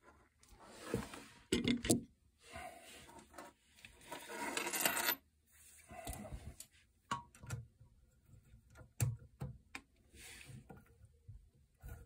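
Small metallic clicks and scraping as a braided metal hose fitting is handled and threaded by hand onto a chrome T-valve under a toilet tank, with irregular pauses between sounds.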